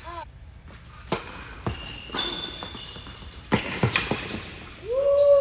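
Indoor hard-court doubles tennis rally: several sharp pops of tennis balls struck by racquets and bouncing on the court, with brief high shoe squeaks. Near the end comes a louder drawn-out tone that rises and then falls.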